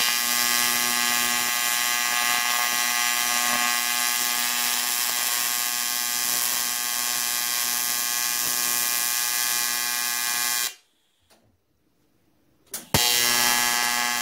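AC TIG welding arc on cast aluminium, a steady high buzz with a pitched hum in it. It cuts off about ten and a half seconds in, and after a two-second pause the arc strikes again with a sharp crack and buzzes on.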